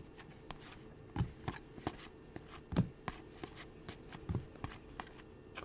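Panini Revolution basketball cards being flipped through by hand: a string of light, irregular clicks and slides, with one sharper click a little before halfway.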